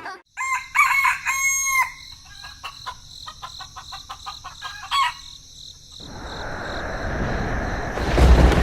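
Rooster crowing, a long held call, followed by a run of short clucks and another brief call. From about six seconds in, a steady rush of noise swells up beneath them.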